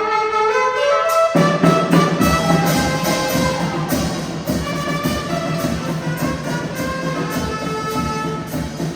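Instrumental ensemble music: a melody line opens, and from about a second and a half in the full group comes in with a steady beat.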